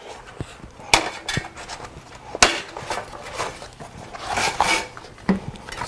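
Hands working an inner tube into a bicycle tire on a steel rim: two sharp knocks about one and two and a half seconds in, a few lighter ticks, and rubbing and scraping near the end.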